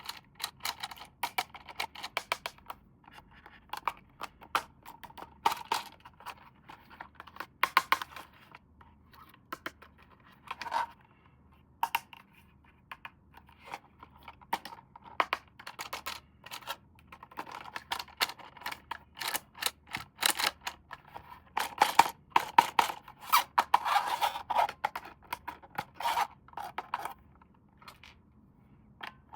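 Plastic toy parts and packaging being handled: irregular clicks, scrapes and crinkles, busiest about three-quarters of the way through.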